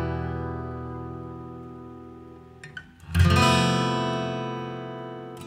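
Background music on acoustic guitar: a strummed chord rings and slowly fades, then a second chord is strummed about three seconds in and rings out.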